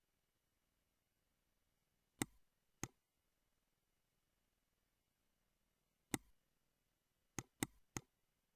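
Computer mouse clicks: two about two seconds in, one about six seconds in, and three quick ones near the end, over near silence.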